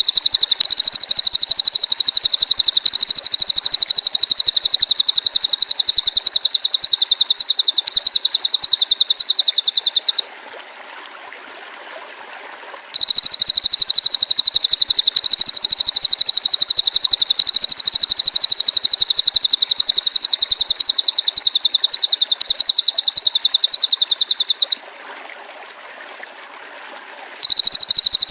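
Belalang emas (golden grasshopper) stridulating in a rapid, high-pitched, evenly pulsing trill, played as a masteran tutor sound for songbirds. It comes in long bouts of ten seconds or more, with short pauses about ten seconds in and again near the end.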